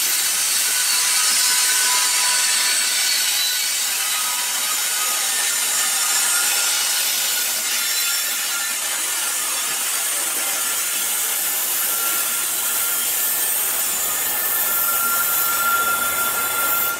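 Steel wheels of a long freight train's last cars and trailing locomotive grinding and hissing along curved rails, with faint high squeals, going on as the train rolls away around the bend. It cuts off suddenly at the very end.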